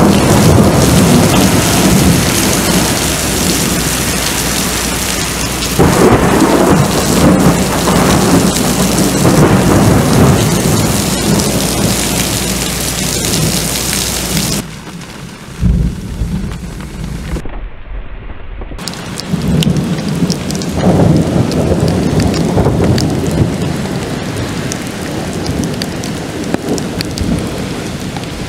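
Heavy rain pouring down during a severe thunderstorm, with loud rolling thunder. The thunder swells about six seconds in and again past twenty seconds, and there is a quieter stretch in the middle.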